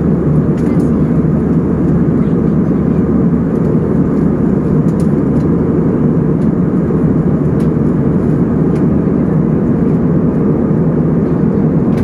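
Steady cabin noise of a jet airliner in cruise: the even rush of engines and airflow heard from inside the cabin, deep and unbroken.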